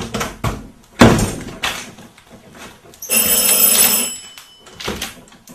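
A bell rung as a school-bell sound effect: a steady ring for about a second, after a few knocks and a thump from handling it.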